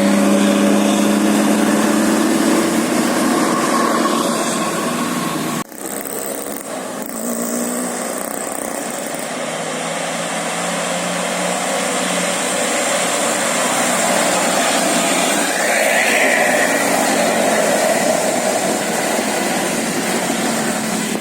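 Road traffic noise with small engines running. It opens with the fading tones of a bus's musical air horn, and after a brief break about six seconds in only the engine and traffic noise remain.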